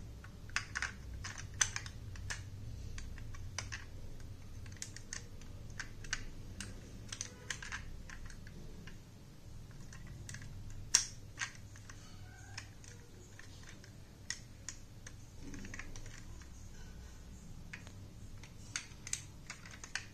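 Irregular small clicks and taps from a 1:32 diecast Mahindra Bolero toy car being handled, its opening doors and bonnet clicking on their hinges and plastic parts tapping against the fingers, with one sharper click about eleven seconds in.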